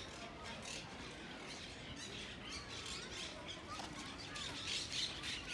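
Birds chirping and squawking in quick, overlapping calls, busiest a little before the end.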